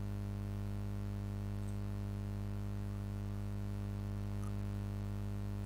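Steady low electrical hum from the recording setup, with two or three faint ticks.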